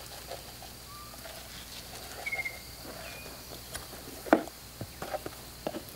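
Quiet outdoor ambience: a steady high insect drone and a few short high chirps, with scattered light ticks and one sharp knock about four seconds in.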